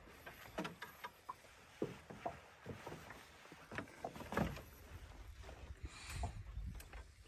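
Scattered light knocks and clicks of gear and movement inside a small aluminium fishing boat, with some low rumble and a brief hiss about six seconds in.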